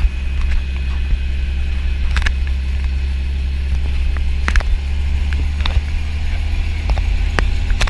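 A light helicopter's engine and main rotor running steadily on the ground, heard from inside the cockpit as a loud, deep drone with scattered sharp clicks.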